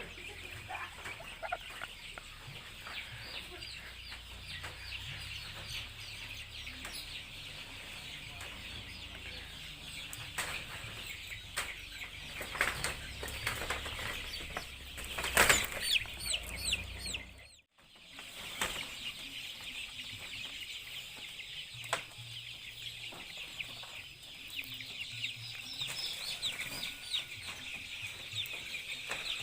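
A crowd of Joper chickens (ayam jowo super) peeping and clucking continuously in many short, high overlapping calls. The sound breaks off for a moment about two-thirds through, then carries on.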